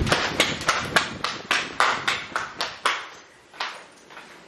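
Quick footsteps on a hard floor, about three a second, that slow and fade after about three seconds, leaving a few lighter taps.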